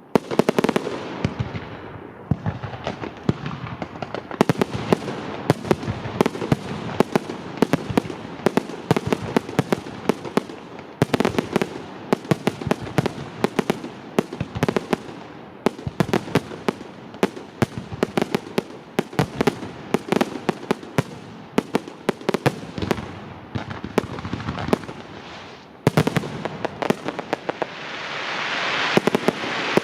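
Fireworks display: a dense, continuous barrage of sharp bangs and booming shell bursts, several a second. Near the end a rising hiss swells under the bangs.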